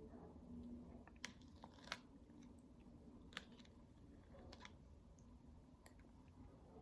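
Near silence: room tone broken by about five faint, sharp clicks spread over several seconds, the loudest about two seconds in.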